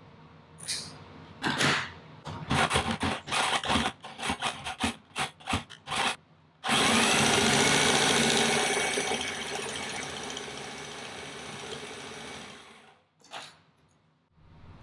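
Portable carpet binding machine stitching binding tape onto a tufted rug's edge, run first in a string of short bursts and then in one continuous run of about six seconds that slowly fades out.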